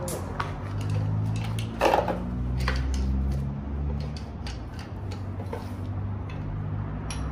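Metal parts of a car differential clinking and knocking as the gear carrier is handled and fitted into its housing, scattered knocks with the loudest about two seconds in. A steady low hum runs underneath.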